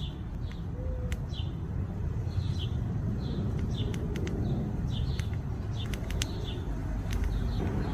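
A small bird chirping over and over, short falling chirps about twice a second, with scattered sharp clicks and a low steady background rumble.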